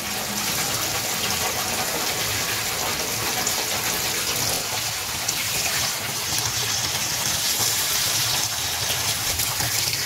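Water pouring steadily from a hose into the drum of a top-loading washing machine, splashing onto the laundry inside as the tub is filled for the rinse.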